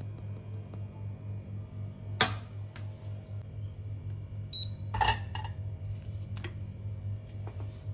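Clicks and knocks from handling pour-over coffee gear: a sharp click a little over two seconds in and a louder clattering knock about five seconds in. Just before the knock comes a short electronic beep from the digital coffee scale as it is reset. A steady low hum runs underneath.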